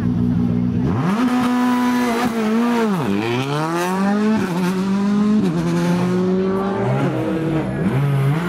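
Škoda Fabia rally car's engine idling at the stage start, then launching about a second in and accelerating hard, its pitch climbing through the gears and dropping at upshifts about three and four and a half seconds in.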